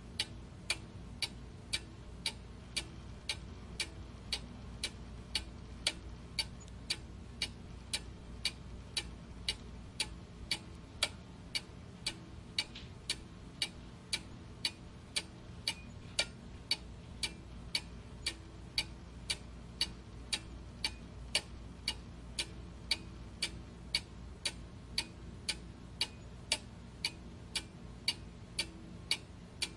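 Steady, even ticking, about two ticks a second, over a faint low hum.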